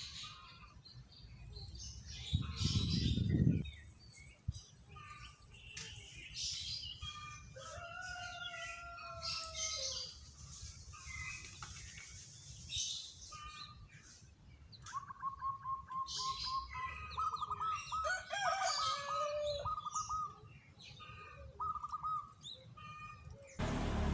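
Zebra dove (perkutut) calling from its cage: one long drawn-out coo a little after seven seconds, then runs of rapid, rolling trilled coos from about fifteen seconds. Smaller birds chirp high over it throughout. A brief low rumble comes near the start and is the loudest thing, and a burst of noise comes right at the end.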